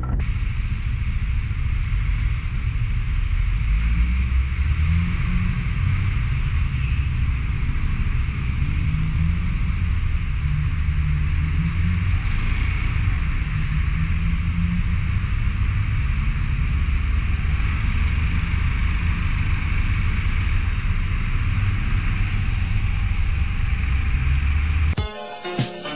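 Motorcycle riding on a wet road: a steady low engine and wind rumble, the engine note wavering a little, with a steady hiss above it. Music cuts in about a second before the end.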